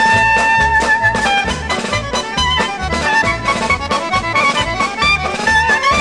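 Polka played by a dance orchestra: a long held melody note opens, then a quick running tune over a steady bass beat.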